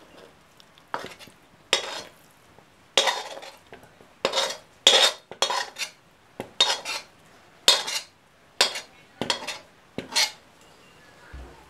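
Metal spoon scraping and knocking against a steel plate and glass bowl as soft kalakand mixture is scooped across and pressed in: a quick, irregular series of short scrapes and clinks, about two a second.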